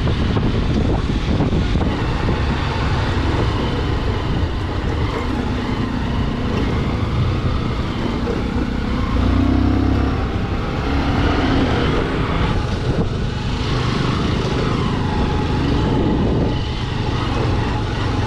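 Motorcycle running along at a steady riding pace, its engine hum mixed with road and wind noise, briefly louder about halfway through.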